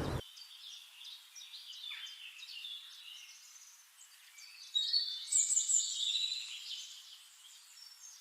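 Small songbirds chirping and twittering in quick, high-pitched notes, louder for a couple of seconds about halfway through.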